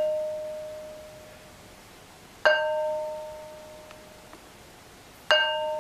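A long, heavy stone struck and ringing like a bell: two sharp strikes about three seconds apart, each ringing on with a clear tone that dies away over a second or two, over the fading ring of a strike just before.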